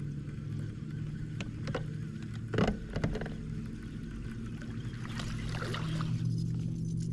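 Boat motor running steadily with a low hum, with a few sharp knocks on the boat about one and a half to three seconds in, the loudest near the middle.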